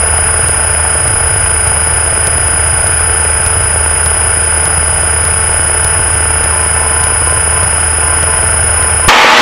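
Steady drone of a Cessna 172's engine and propeller in cruise, heard in the cabin, with a thin, steady high whine over it. About 9 seconds in, the sound switches abruptly to a louder, even rushing noise.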